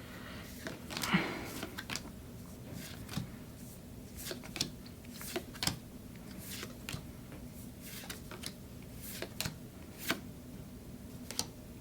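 Pokémon trading cards being handled and flipped through from an opened booster pack: light, irregular clicks and slides, with a brief rustle about a second in.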